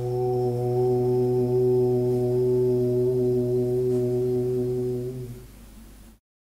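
The qigong spleen sound: one long, steady low tone with even overtones, held about five seconds, then fading and cut off.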